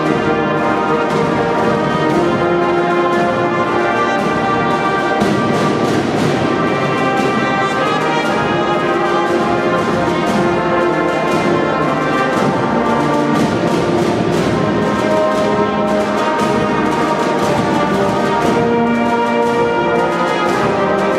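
Marching band playing: brass instruments hold chords and melody over a steady beat of side drums.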